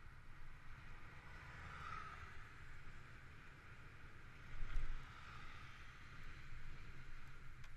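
Ride noise from an e-bike on wet pavement: a steady tyre hiss with wind rumble on the microphone, and a brief bump a little over halfway through.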